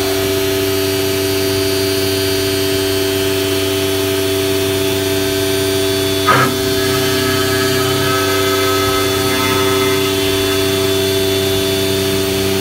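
Techno HDS CNC router spindle running a horizontal aggregate head, a steady whine of several held tones. About halfway through comes a brief, sharp, louder burst, after which fainter higher tones join the running.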